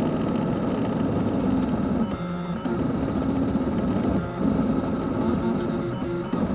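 3D printer at work, its stepper motors whirring in short runs that jump from one pitch to another, over a steady fan-like hiss.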